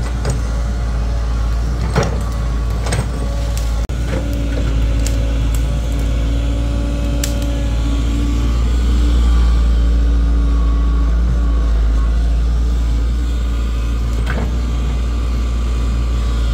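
Excavator's diesel engine running steadily, slightly louder around the middle, with a few sharp clanks, the clearest about two seconds in and again near the end.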